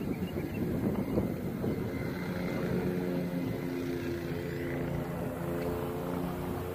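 A steady motor hum comes in about two seconds in and fades out near the end. Wind rumbles on the microphone underneath it.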